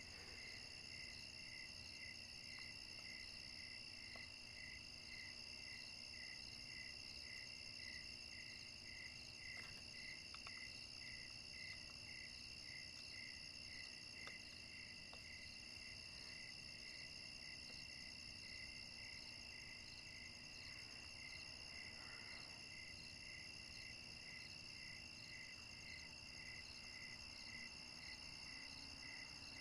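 Faint crickets chirping in a steady rhythm, a little more than one chirp a second, over a continuous high-pitched insect trill.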